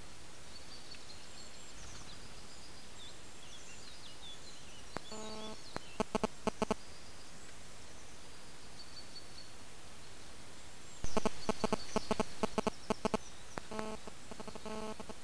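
Wild boar grunting in short rhythmic bursts: a few grunts about a third of the way in, then a sudden louder, quicker run of them about two-thirds in, and more near the end. Small birds chirp faintly in the background.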